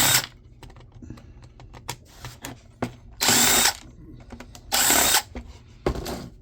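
Electric drill-driver run in short bursts of about half a second, backing screws out. A burst ends just after the start, two more come a bit over a second apart in the middle, and a short one comes near the end. Small clicks and taps of screws and parts being handled fall in between.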